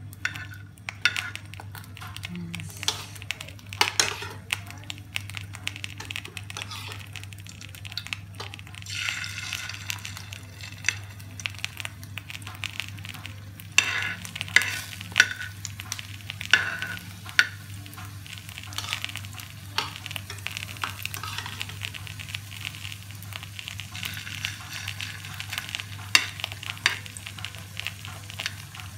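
A patty of instant noodles bound with egg frying in hot oil in a pan: steady sizzling with frequent crackles and pops, a run of louder pops about halfway through.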